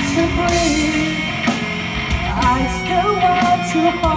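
Live rock band playing: guitar and drums under a sung vocal line that is held and bent between lyrics.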